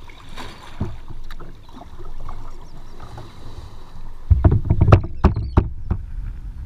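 Sea water lapping and splashing against a sea kayak's hull. Between about four and six seconds in comes a quick run of loud slaps and knocks on the hull.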